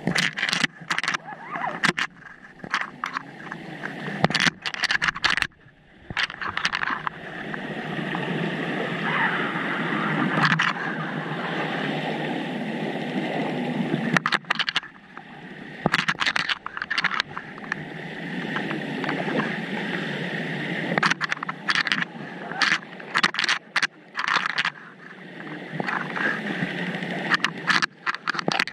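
Underwater sound picked up by a camera in its waterproof housing: irregular sharp clicks and knocks, with a long stretch of steady rushing, bubbling noise through the middle.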